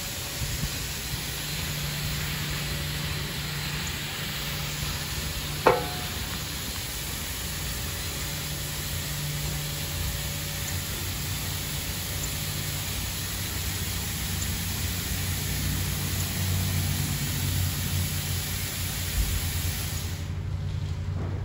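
Ryko Radius HT touchless car wash spraying high-pressure water onto a car: a steady hiss of spray over a low machine hum, with one sharp clunk about six seconds in. The spray cuts off near the end.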